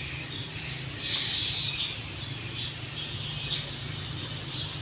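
Outdoor ambience of insects chirring in steady high-pitched bands, louder about a second in, over a low steady hum.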